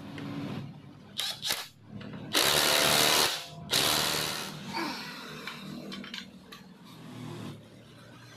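Workshop power tool running in short bursts: two brief ones, then a loud burst lasting about a second and a shorter one that fades, with quieter clatter of tools around them.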